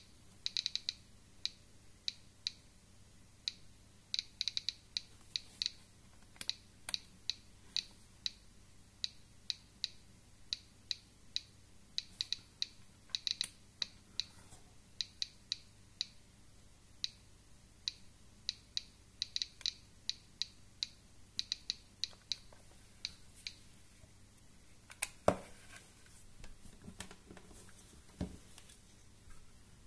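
Homemade GK-mini++ Geiger counter clicking irregularly, a few clicks a second, each click one detected ionising particle; the display reads about 340 counts per minute, well above background, from a radioactive sample nearby. Near the end a loud knock and a short stretch of handling noise follow as the counter is picked up.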